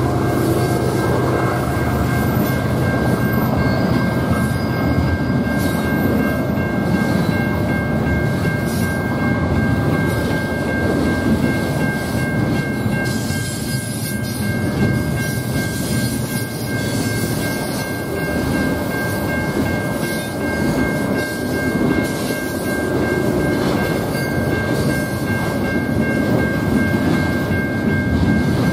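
BNSF freight train rolling past, cars and wheels rumbling steadily on the rails, with a steady high-pitched ring held over the rumble.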